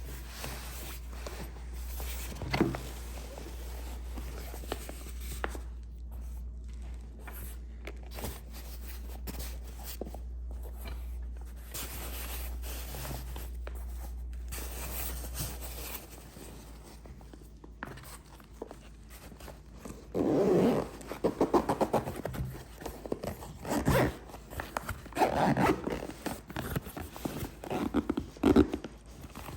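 Handling noise with rubbing and scraping, then a run of short zipper rasps in the last third, like a gear bag being zipped.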